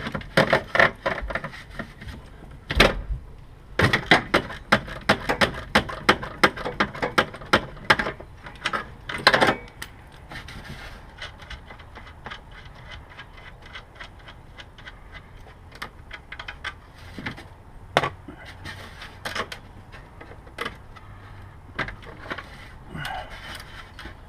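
Ratchet wrench with a 15 mm socket loosening a nut, giving runs of rapid clicking. There is a heavy metal knock about three seconds in, a louder clatter near ten seconds, then scattered clicks and tool handling.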